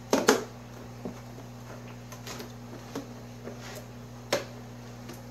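Plastic food-storage containers knocked and shifted about in a steel tub: a pair of loud knocks at the start, then scattered lighter clicks, over a steady low hum.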